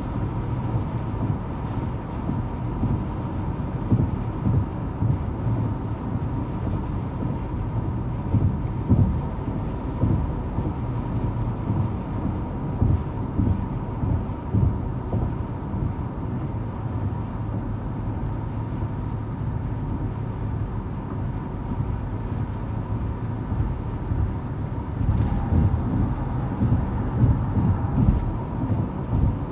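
Road noise heard inside a car cruising on a highway: a steady low rumble of tyres and engine, with a faint steady whine running through it. A few light clicks come near the end.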